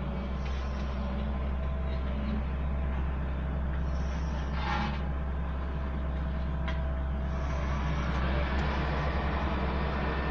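Heavy road-building machinery running: a steady low engine drone, with a short hiss about four and a half seconds in and a fast low pulsing setting in near the end.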